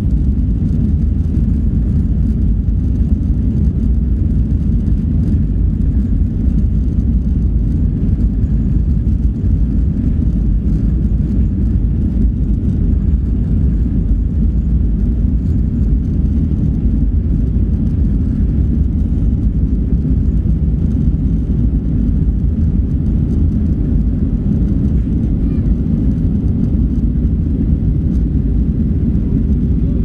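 Cabin noise inside a jet airliner during the takeoff roll: the engines at takeoff power and the wheels running on the runway make a steady low rumble heard through the cabin.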